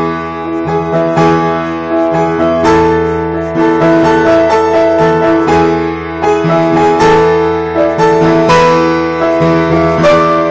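Piano music: chords and melody notes struck one after another and left to ring, with new notes coming in about every second.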